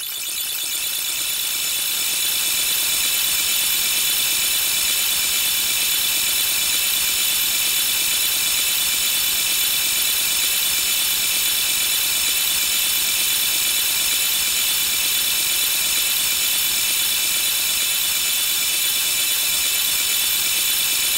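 Alarm clock going off: a continuous, unbroken high metallic ringing rattle. It swells up over the first couple of seconds and then holds steady.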